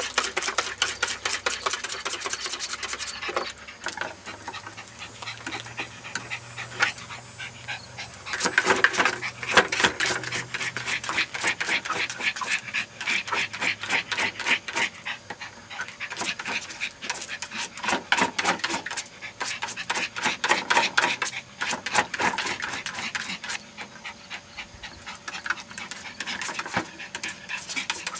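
Small terrier panting fast and hard as it splashes in and noses and paws at a plastic bucket of water.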